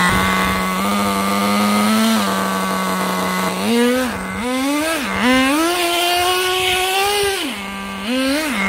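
Small nitro glow engine of an HSP 94102 1/10 RC touring car idling steadily, then revving up four times as the car is driven off. The third rev is held for about two and a half seconds, and each time the engine drops back to idle.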